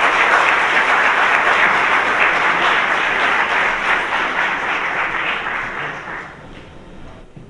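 Audience applauding, the applause fading away about six seconds in.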